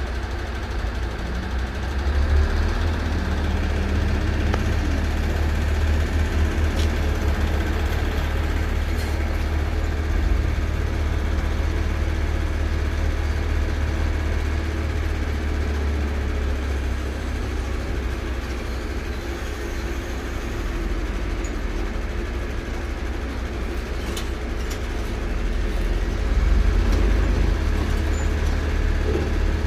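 Heavy diesel engines running steadily as a container handler lowers a steel shipping container onto a truck's trailer chassis, swelling a couple of seconds in and again near the end, with a few faint metallic clicks.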